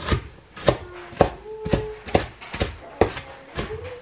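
Kitchen knife chopping onion on a plastic cutting board: a steady run of sharp chops, about two a second.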